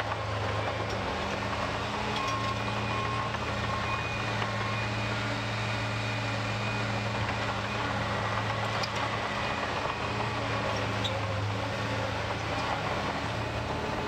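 Caterpillar crawler loader's diesel engine running steadily as the tracked machine works the dirt, with a deep, even hum.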